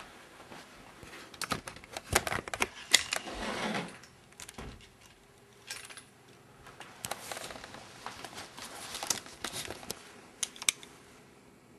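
Irregular metallic clicks and clatter from a hand crimper being handled and worked, in two bursts with a quieter gap between.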